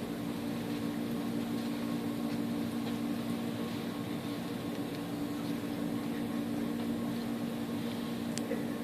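Steady low mechanical hum holding two close droning tones, with a few faint soft ticks and one sharper tick near the end.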